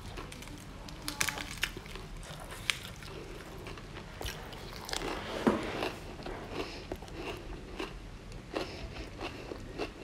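Close-up chewing of a mouthful of crisp lettuce leaf wrapped around rice, shrimp and chili paste, with irregular crisp crunches, the loudest about halfway through.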